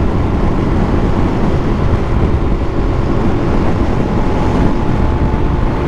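Dual-sport motorcycle riding at road speed: a steady rush of wind on the microphone over the engine's drone.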